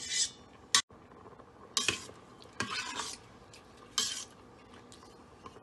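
Metal spoon stirring rice and vegetables in coconut milk in a stainless steel Instant Pot inner pot, scraping against the pot's side and bottom in about five short strokes.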